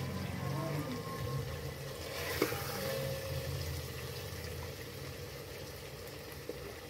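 A steel ladle serving chickpea curry onto a china plate, with one sharp clink against the dish about two and a half seconds in, over a steady low hum.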